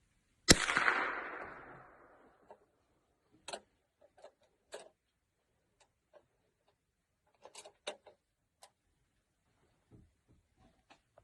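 A single .22 rifle shot about half a second in: a sharp crack that rings out and fades over a second or so. A few faint, short clicks and rustles follow.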